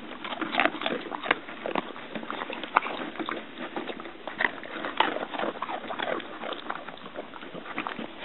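A Labrador-mix dog in a hard plastic cone sniffing and nosing plastic Easter eggs on carpet, with irregular small clicks and rustles throughout.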